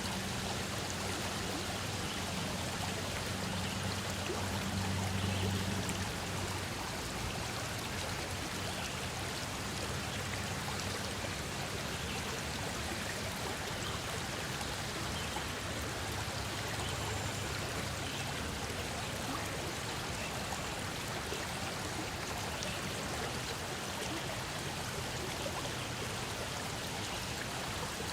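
Flowing stream: a steady, even rush of running water.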